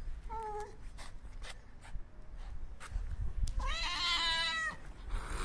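Male stray cat meowing for attention: a short meow about half a second in, then a longer, wavering meow around four seconds in. A hiss starts near the end.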